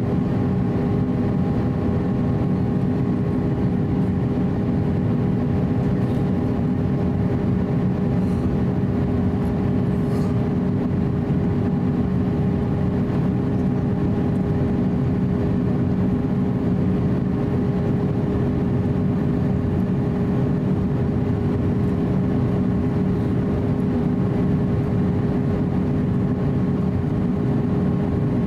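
Airbus A350-900 cabin noise in flight, heard inside the cabin over the wing: a steady rush of airflow and the drone of its Rolls-Royce Trent XWB turbofan engines, with a few steady humming tones.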